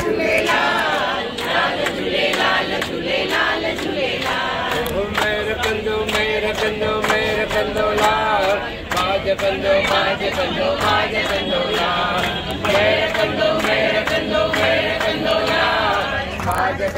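A mixed crowd of men and women singing together in unison, clapping their hands in a steady rhythm.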